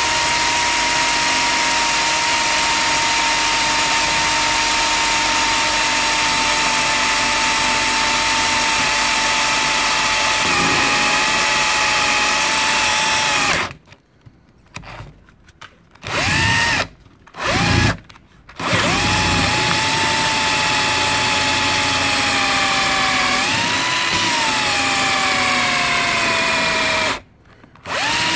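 Bosch 1440 cordless drill/driver running with a steady motor whine as its twist bit bores into a Nokia 3310's screen and plastic housing. About halfway through it stops, gives two short trigger bursts, then runs again with its pitch sagging under the load. It stops briefly near the end and starts up again.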